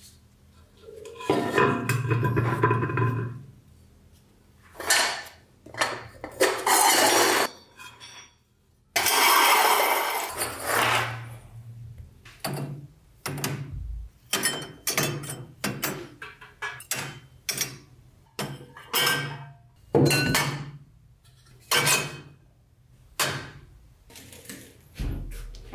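Metal parts of an antique oil lamp being unscrewed and handled: scraping, grinding passages as pieces are worked apart, then a quick series of clinks and knocks as thin metal pieces are set down.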